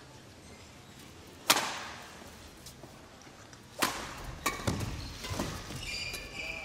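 Badminton racket strikes on the shuttlecock during a rally: a sharp smack about a second and a half in, then more hits about four seconds in. Near the end, shoes squeak on the court floor.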